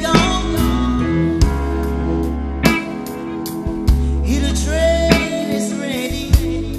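Background song with guitar over a drum beat that hits about every second and a bit.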